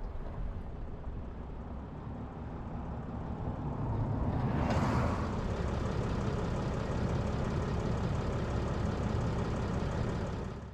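A stopped vehicle's engine idling with a steady low rumble. It grows louder about four seconds in, with a brief rush of noise.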